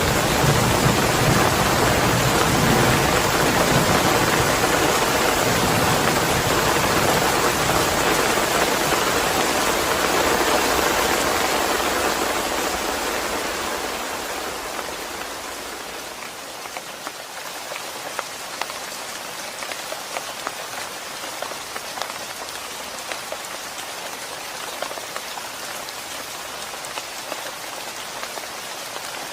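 Heavy rain falling steadily, with a deep low rumble fading out in the first seconds. About halfway through it eases into lighter rain, where separate drops can be heard ticking.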